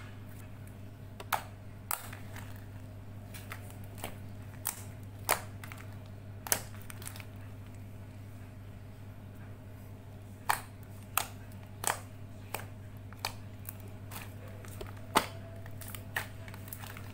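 Slime being kneaded and mixed by hand, air pockets popping in irregular sharp clicks, over a steady low electrical hum.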